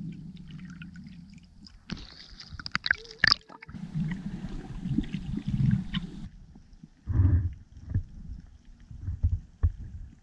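Muffled underwater sound picked up by a camera carried by a snorkeling freediver: water rushing and gurgling against the housing in uneven swells, with scattered sharp knocks.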